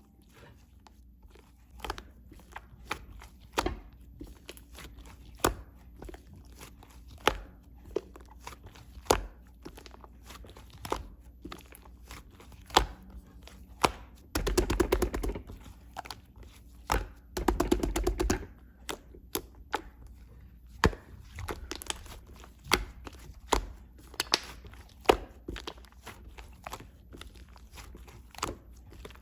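Slime being played with by hand: scattered sharp clicks and pops, with two longer bouts of squishing about halfway through.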